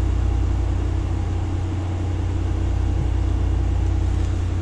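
Steady low hum and whir of a running eMac computer, its cooling fan and hard drive spinning without change.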